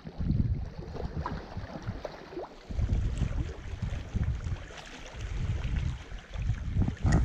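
Wind buffeting the microphone in irregular low rumbling gusts, with a short knock near the end.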